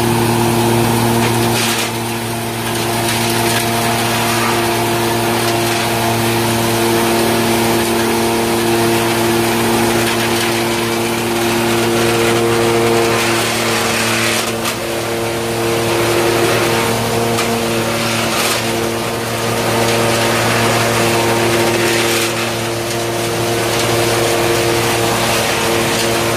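Belt-driven wood sawdust machine running steadily with a loud, even hum and whirr. A few brief louder bursts of noise break through, as wood is fed in and ground.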